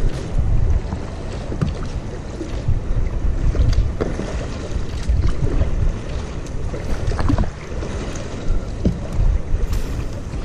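Kayak paddle dipping and pulling through flat water, with splashes and drips from the blade and water lapping at the hull, over a low rumble of wind on the microphone.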